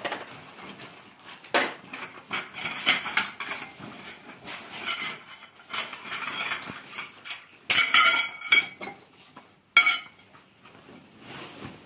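Aluminium frame tubes of a folding camping kitchen clinking and clattering against each other as they are pulled out of a carry bag and laid down, with a couple of sharper ringing clanks about eight and ten seconds in.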